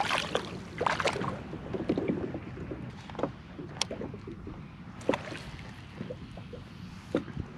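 Water splashing beside a kayak as a hand works in the water at the hull, loudest at the start and again about a second in. Then quieter water sloshing against the kayak, broken by a few sharp knocks and clicks as gear is handled on board.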